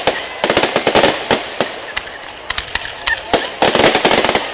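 Fireworks bursting overhead in rapid volleys of sharp pops and cracks, with one dense cluster about half a second in and another near the end.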